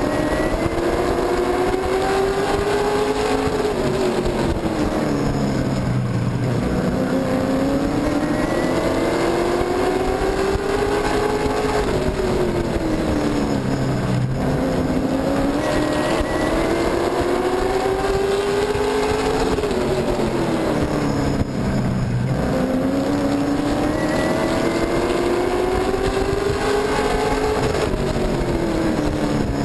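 Super truck's racing engine heard from inside the cab at racing speed. Its pitch climbs under full throttle for a few seconds, then drops as the driver lifts, repeating about every eight seconds.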